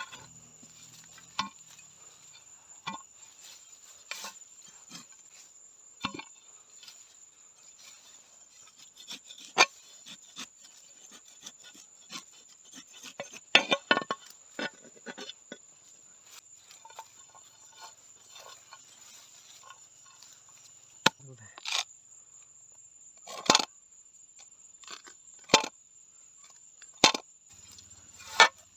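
A steady high-pitched insect trill, like a cricket, runs throughout. Over it come irregular sharp snaps and crackles of dry twigs and brush, with a few louder clusters in the middle and toward the end.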